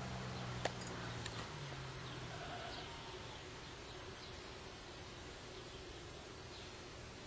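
Faint outdoor ambience of insects chirping. A low steady hum dies away in the first couple of seconds, and there is a single sharp click about a second in.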